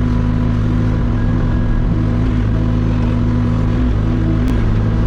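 Hauyee HY35C mini excavator's engine running at a steady speed while the machine handles logs.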